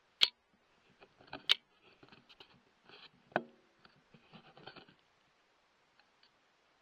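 Three sharp clicks or knocks amid light rustling, the third with a short low ring, all stopping about five seconds in.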